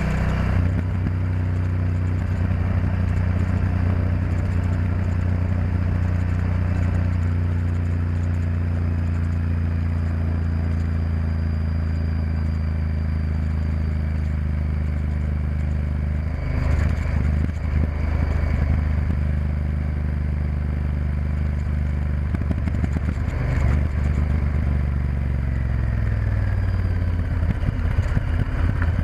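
Honda Varadero XL1000V's V-twin engine running steadily while riding. Two short rough bursts of noise come past the middle, and near the end the engine note drops as the bike slows.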